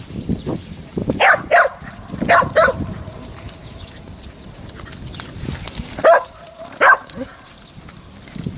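Icelandic sheepdog barking while herding sheep: short, sharp barks in pairs, with a quieter gap of a few seconds mid-way.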